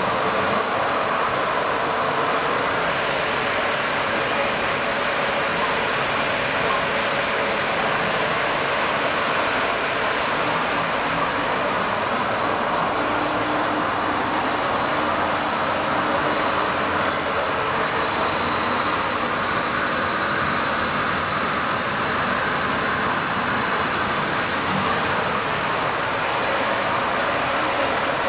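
WEEKE CNC woodworking machining centre running, a steady, even rushing machine noise with no breaks.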